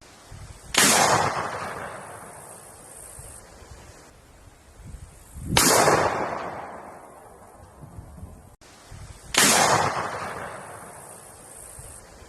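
Three single gunshots, about four seconds apart, each a sharp crack followed by a long fading echo.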